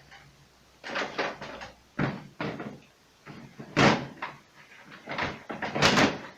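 Plastic interior panels and covers of an LG refrigerator being fitted and knocked into place: a series of separate knocks and clatters, with short pauses between.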